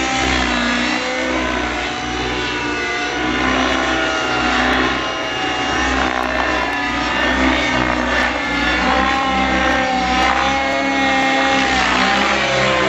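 Miniature Aircraft Stratus RC helicopter flying 3D aerobatics, its power unit and rotor whine rising and falling in pitch as it manoeuvres.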